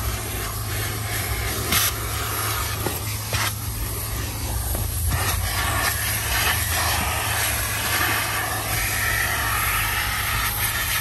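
Car-wash vacuum running steadily as its hose nozzle sucks dirt and grit off the car's floor carpet: a constant low hum under a rushing hiss.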